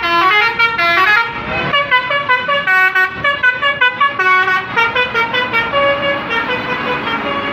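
Basuri telolet bus horn, a multi-trumpet musical air horn, playing a rapid tune of short stepped notes, several sounding together at times.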